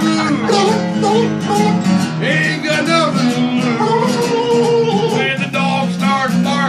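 An acoustic guitar strummed under a voice singing a blues song, played live.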